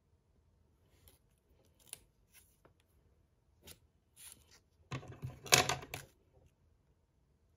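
Plastic wrapper of a jelly straw crinkling as it is handled. There are faint light crackles at first, then a loud burst of crinkling about five seconds in that lasts about a second.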